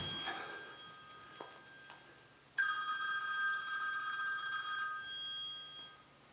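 Telephone ringing for an incoming call: the end of one ring dies away in the first second, then another ring starts about two and a half seconds in and stops abruptly about six seconds in.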